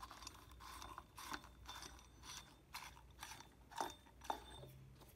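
Faint, irregular metallic clicks and clinks as an ATI damper installer tool is handled and fitted onto the crankshaft damper. Two sharper clicks come about four seconds in.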